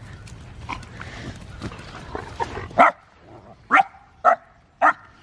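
A dog barking: four short, loud barks, the first a little under three seconds in, the last three about half a second apart. Before the barks, low rustling and light clicks.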